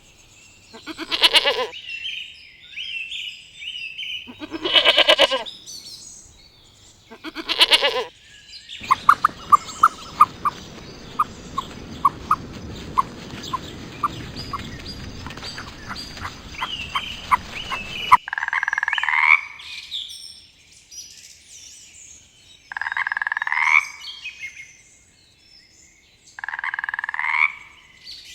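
A run of different animal calls. First come four pitched calls, each about a second long. Then a stretch of hiss with a quick series of short clicks. Then three separate calls that each rise in pitch.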